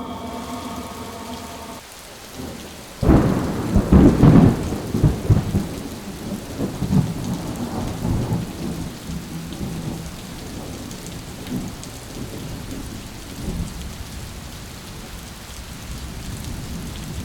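A clap of thunder about three seconds in, rumbling and fading over several seconds, followed by steady rain.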